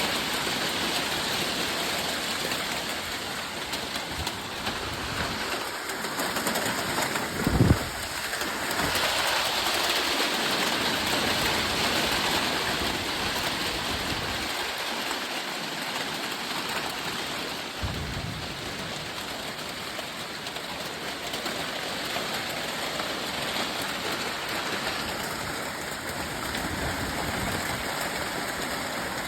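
Hail and heavy rain pouring down in a steady, dense hiss that swells for a few seconds about a third of the way in. Two brief low thumps stand out, one about 8 seconds in and another about 18 seconds in.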